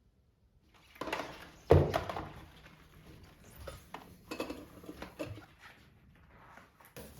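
Kitchenware being handled: a string of knocks and clunks starting about a second in, the loudest a little after.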